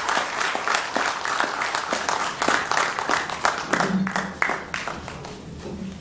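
Audience applauding, dense clapping that thins out and dies away about four to five seconds in.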